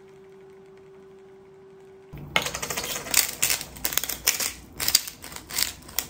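A faint steady hum, then from about two seconds in the rapid crunching clicks of a hand-twisted glass salt or pepper grinder grinding onto food, in repeated spells of twisting.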